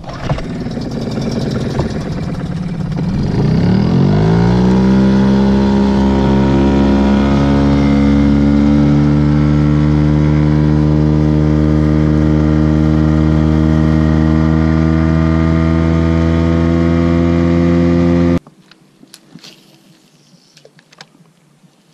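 Outboard motor on a small inflatable boat speeding up over the first four seconds, then running at a steady pitch under way. It cuts off suddenly about eighteen seconds in.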